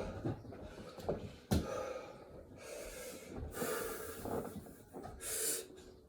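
A man breathing hard and gasping in repeated heavy breaths, winded mid-set of burpees, with a single thump about one and a half seconds in.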